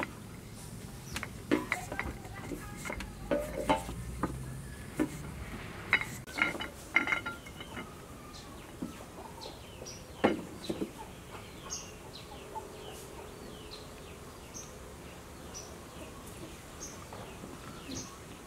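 Wooden rolling pin knocking and rolling on a steel table while dumpling dough is rolled out, giving sharp knocks in the first half. Chickens call throughout, with short high falling chirps repeating through the second half.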